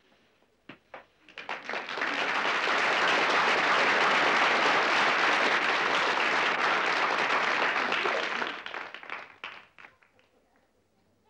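Audience applause: a few scattered claps build quickly into steady clapping, which thins out to single claps and dies away near the end.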